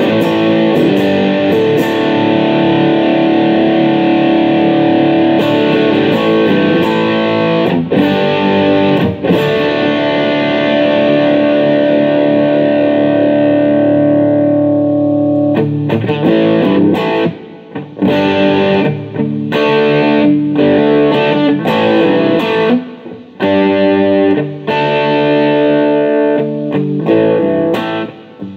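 Electric guitar played through overdrive on its bridge humbucker, a DiMarzio Tone Zone. Long sustained chords ring for about the first half, then shorter, choppier chords and riffs follow with brief gaps.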